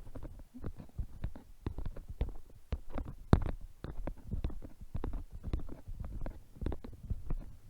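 A hiker's footsteps on a trail, with thumps and rubbing from the handheld camera: irregular knocks about two to three a second, with one sharper knock about three and a half seconds in.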